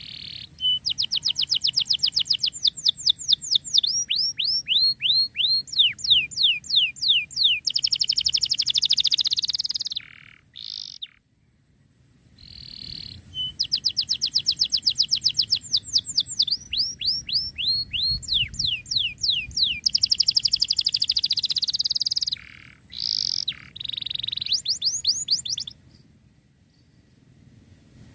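Domestic canary singing: two long song phrases made of fast runs of repeated, falling, high-pitched notes and rolls, with a short break between them.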